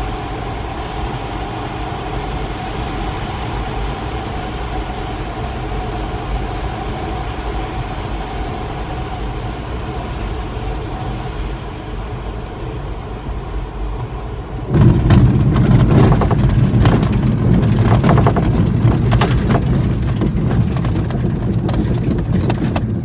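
Air rushing past the canopy of a Grob Viking glider descending on final approach with its airbrakes out, a faint high whistle sinking slowly as it slows. About fifteen seconds in it touches down on grass and the landing wheel rumbles and rattles loudly over the ground as it rolls out.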